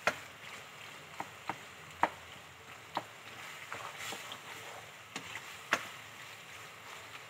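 Long spoon stirring a thick macaroni filling in a wok, scraping through the mixture and knocking against the pan with sharp clicks about once a second.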